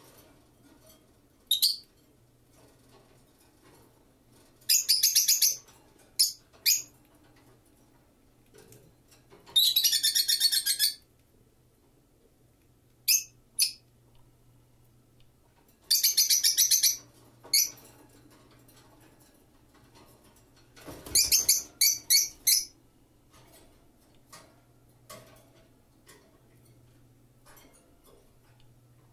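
Peach-faced lovebird chirping in repeated high-pitched bursts with quiet gaps between, the longest lasting about a second and a half.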